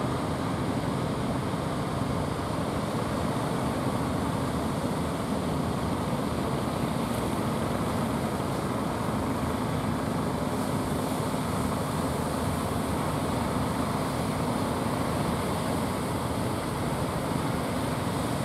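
Steady wash of surf breaking on the beach, with a faint, even low hum of the fishing boats' engines offshore.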